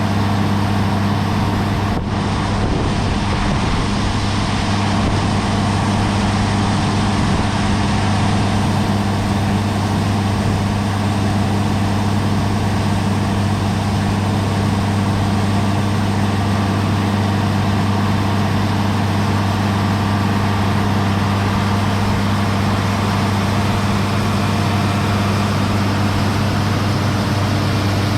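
Harvest-time farm engine running steadily at a constant speed, a loud even hum with no revving; a brief click about two seconds in.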